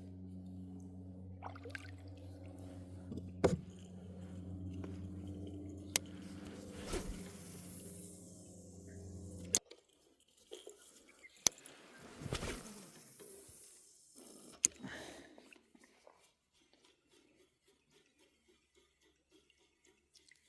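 A motor's steady low hum that cuts off suddenly about ten seconds in, followed by a few sharp clicks and knocks.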